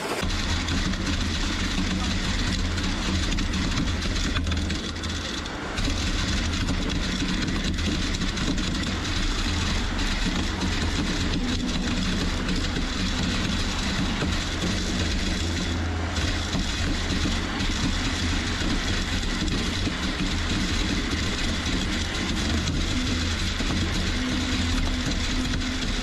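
Concrete boom pump truck's diesel engine running steadily under load while pumping concrete, a constant low drone.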